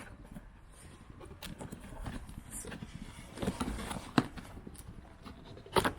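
Handling noise: scattered light knocks and clicks as objects are moved about, with a sharper knock near the end.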